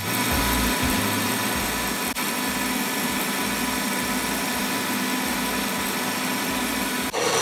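KitchenAid stand mixer running steadily at medium speed, its wire whisk whipping egg whites for meringue.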